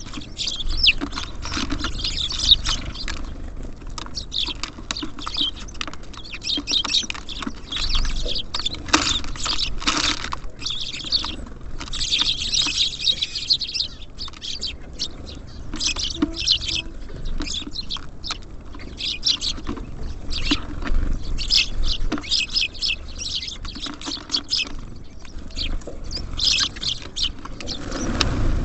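Small songbirds chirping almost without pause in short, high calls, with scattered light taps and clicks of birds pecking and landing on a bird feeder.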